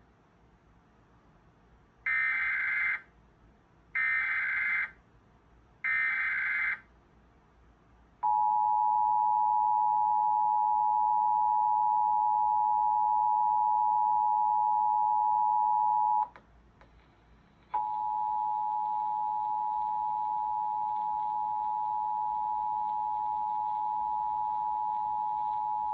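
Emergency Alert System monthly test signal: three short bursts of buzzing digital header data, then the steady two-tone attention signal, which cuts off and starts again after a second and a half.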